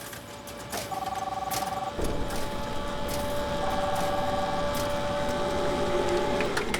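An electronic phone ringing in trilling bursts about a second long, twice, over a steady high hum, with scattered clicks.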